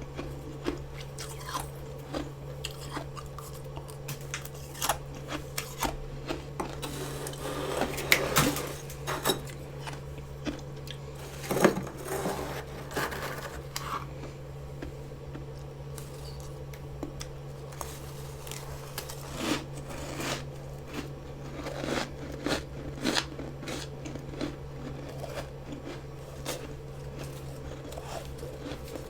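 Freezer frost being bitten and chewed close to the microphone: a long run of crisp, crackly crunches, with the loudest bites about eight and twelve seconds in. The frost is fresh, humidifier-grown frost eaten straight from a mini freezer.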